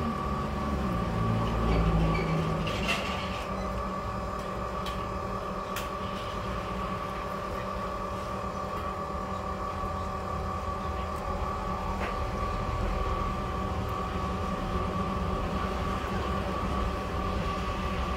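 A steady machine hum made of several level tones, with a low rumble in the first few seconds.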